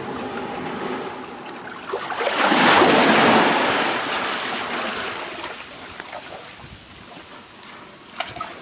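Ocean swell washing into a narrow sandy channel between granite boulders. A wave surges in as a rising rush of foaming water about two seconds in, then drains away over the sand and fades.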